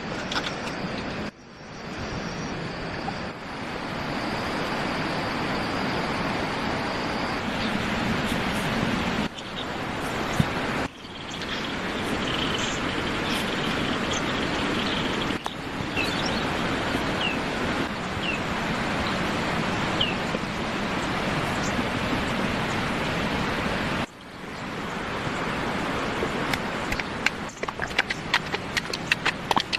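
Steady rushing outdoor noise broken by several abrupt cuts, with a few faint high chirps in the middle and a rapid run of sharp clicks near the end.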